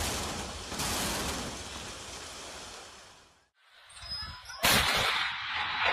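Building demolition noise: a rumbling noise fades away over about three seconds. After a short break, a sudden loud blast starts and carries on as continuing noise.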